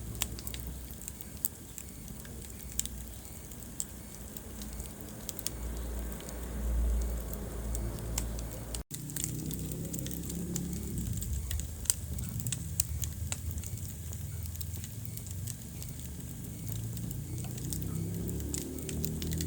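Wood fire in a fireplace crackling, with frequent sharp, irregular pops and snaps over a low rumble of the flames. The sound drops out for a split second about nine seconds in.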